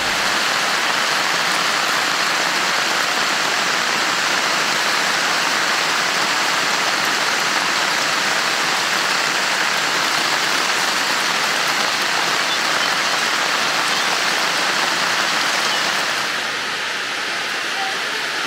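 Heavy rain pouring steadily, an even hiss of drops striking the ground and splashing into puddles; it turns a little softer near the end.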